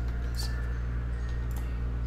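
Two computer mouse clicks about a second apart, over a steady low hum.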